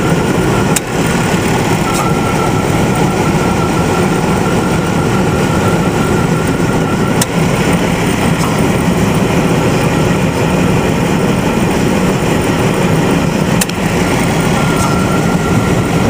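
Tow truck's engine idling steadily, with a faint steady whine above it and three brief sharp clicks spaced several seconds apart.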